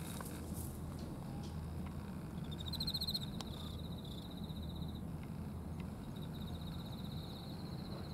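A high, rapid trilling animal call, once for about two and a half seconds and again from near the end, over a low steady outdoor rumble.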